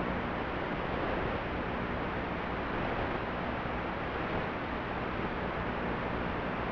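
Steady static hiss with a faint low hum underneath, unchanging throughout: the empty audio channel of an analog 5.8 GHz FPV video link as recorded with the video feed.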